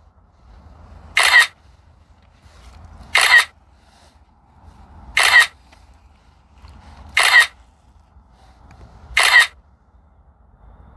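Drone app's camera-shutter sound on the phone, one click for each photo of an interval (hyperlapse) sequence: five sharp shutter clicks about two seconds apart.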